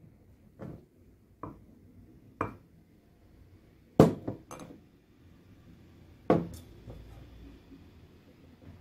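Glass and kitchen dishes clinking and knocking as they are handled: about seven separate sharp clinks with pauses between, the loudest about four seconds in.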